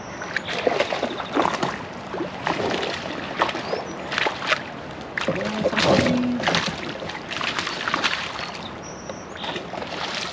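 Water sloshing and slapping against a fishing kayak's hull in uneven knocks and splashes.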